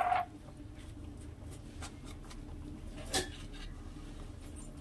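Low steady rumble of a lit gas stove burner under a steel pan of mustard seeds, with a few faint ticks and one brief sharper sound about three seconds in.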